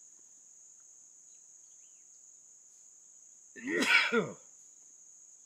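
Crickets chirring in a steady high band throughout. About four seconds in, a man lets out a sudden, loud two-part burst from his nose and mouth, a sneeze or cough.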